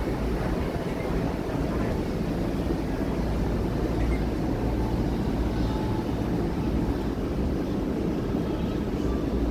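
A steady low rumble of background noise, unbroken and even in level.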